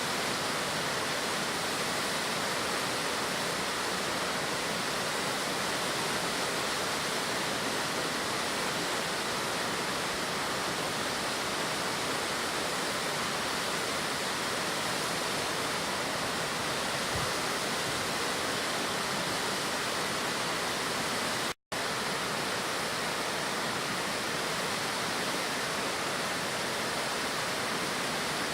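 A high-volume waterfall pouring steadily, a constant full rush of falling water, broken by a split-second gap of silence about two-thirds of the way through.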